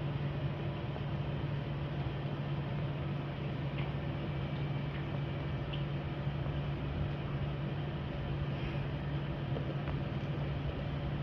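Small electric air compressor running steadily with a low hum, pumping up the tyre of an electric unicycle.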